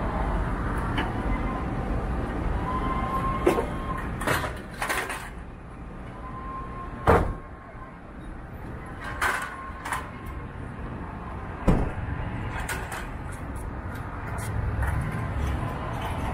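Street traffic rumbling steadily, with keys clipped at a walker's waist clinking close to the microphone in irregular sharp clicks, the loudest about seven seconds in and again near twelve seconds.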